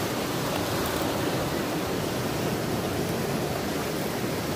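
Ocean surf breaking and washing up a sand beach: a steady, even rush of water.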